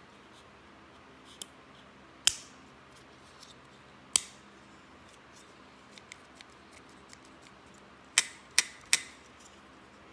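Sharp plastic clicks from a small refrigerator door light switch being pressed back together, its housing catches snapping. There are two single clicks, then three in quick succession near the end, with faint handling ticks between.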